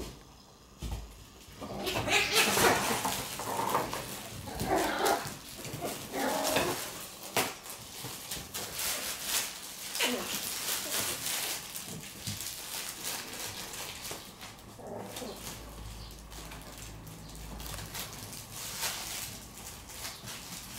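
Shiba Inu puppies at play: a fabric play tunnel rustling and paws skittering on a hard floor, with puppy vocal sounds. The scuffling is loudest over the first several seconds, then turns into quieter, scattered knocks and rustles.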